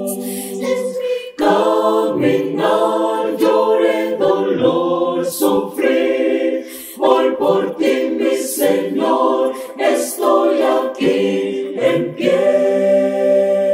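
Mixed choir of women's and men's voices singing a cappella in Spanish, phrase by phrase with short breaks, settling into a long held chord near the end.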